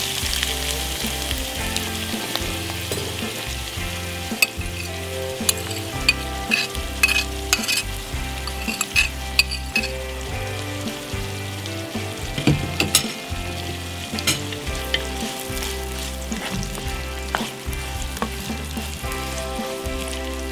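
Chopped onions sizzling in hot oil in a nonstick wok, loudest at the start as they go in and then settling to a steady sizzle. Sharp knocks of the bowl and spatula against the pan are scattered through it as the onions are stirred.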